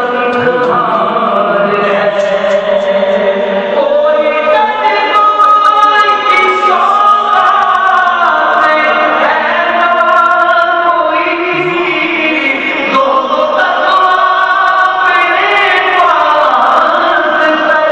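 A naat, Islamic devotional song, sung in a chanting style with long held, gliding notes.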